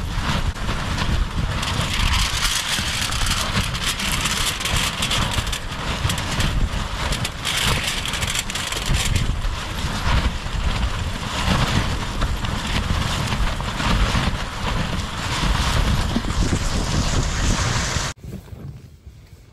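Gale-force wind buffeting the tent, with a heavy low rumble of wind on the microphone and crackling as the fabric is shaken. It stops abruptly near the end.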